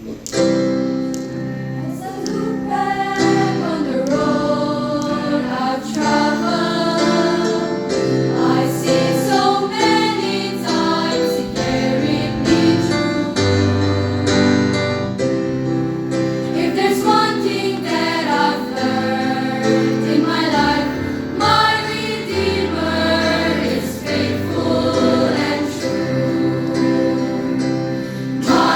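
A choir of voices singing a song together over held low bass notes from an accompanying instrument, beginning suddenly at the outset.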